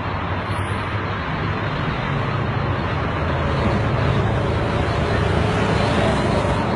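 Steady rumble of road traffic, growing slightly louder over the first few seconds.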